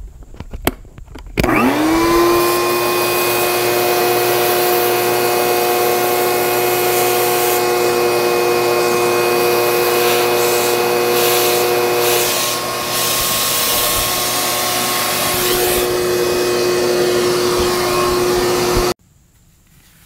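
Shop vac switched on about a second in, its motor whine rising to a steady pitch as the hose nozzle sucks dust from around a propane heater's burner and thermocouple; it cuts off suddenly near the end.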